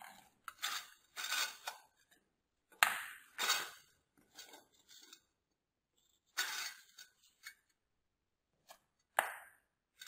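Corrugated plastic washing-machine drain hose knocking and scraping against an enamel basin as it is handled: a series of separate clinks and scrapes, the sharpest about three seconds in and again near the end.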